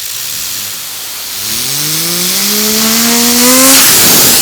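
A loud hissing blast of compressed air drives a fidget spinner, whose whine rises steadily in pitch as it spins up toward about 10,000 rpm. Near the end the air cuts off suddenly, leaving the spinner's steady whine.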